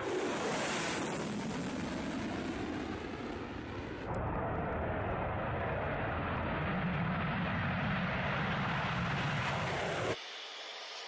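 Twin afterburning turbofan engines of MiG-31K interceptors at full power: dense jet noise from a low pass overhead and a takeoff, with a strong high hiss in the first second. The sound cuts abruptly about four seconds in, and again near the end, where it drops to a quieter, more distant jet sound.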